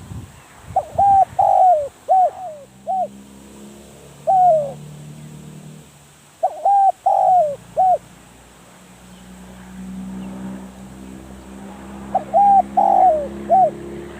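Spotted dove cooing: three phrases of several hooked coo notes, about five to six seconds apart, with a single note between the first two. A steady low hum runs under it from about two seconds in.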